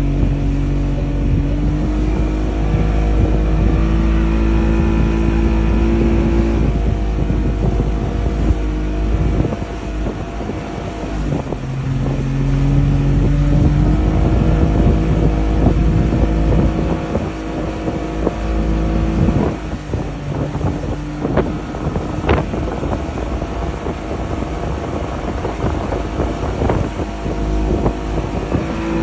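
Motorboat engine running, its pitch stepping up and down several times as the throttle changes, with wind buffeting the microphone and a few short knocks or splashes in the second half.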